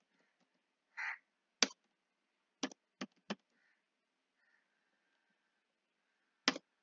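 A few sharp computer keyboard key clicks, irregularly spaced, as a short text is typed. A short harsh call sounds about a second in.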